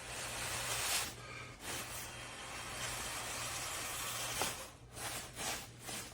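A person blowing two long breaths into the valve of a self-inflating camping pillow to top it up, air hissing through the valve. The first breath is short and the second much longer.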